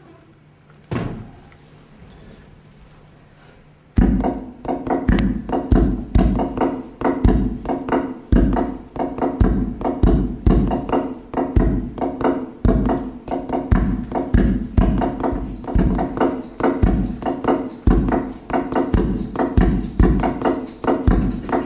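A single ringing strike about a second in. From about four seconds in, percussion-driven music plays, with a fast, steady beat of strong low hits.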